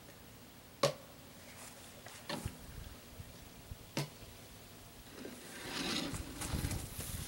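Handling of a drill mixing paddle and a plastic bucket of coating: two sharp clicks about three seconds apart with a few small knocks between, then soft rustling and scraping near the end.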